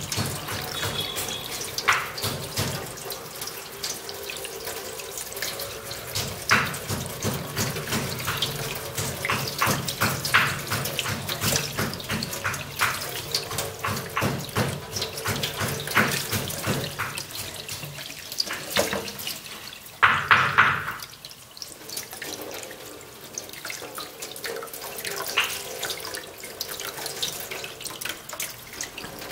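Tap water running into a kitchen sink, splashing irregularly as raw chicken pieces are rinsed by hand under it. About twenty seconds in there is one louder burst, after which the water is quieter.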